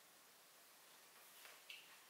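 Faint rustle of a book page being lifted at its corner by hand, starting about a second in, with one light tick near the end, over a quiet steady hiss.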